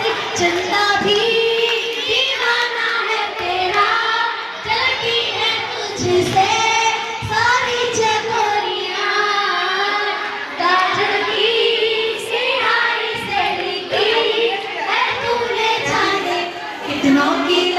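A group of schoolchildren singing together, one song carried without a break.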